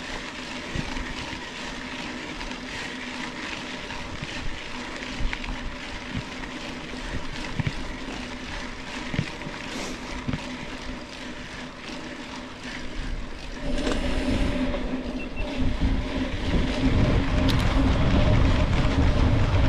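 Mountain bike rolling along a dirt trail: tyre rumble and wind on the camera microphone, with a steady hum underneath and occasional knocks as the bike goes over bumps. The rumble grows louder and heavier about two-thirds of the way through.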